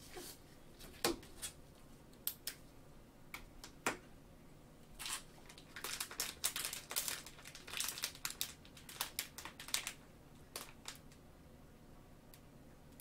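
Faint crinkling of plastic cello-pack wrappers on trading-card packs being handled, in scattered short crackles that come thickest in the middle few seconds.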